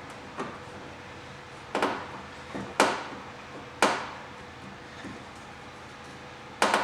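Sharp knocks and clicks of hand tools and screws being handled as screws are fitted into the holes of a diamond plate access panel, about five separate knocks with pauses between them.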